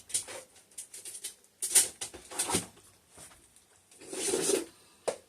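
Kitchen items being handled and set down while searching for the flour: scattered knocks and clicks, two sharper ones about two seconds in, and a longer noise about four seconds in.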